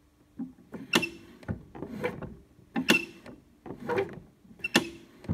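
Lawn mower engine being cranked over for a spark test, with its brake and kill-switch cable adjusted so it now makes spark. Sharp metallic clacks and short rattles come in pairs, the loudest about every two seconds.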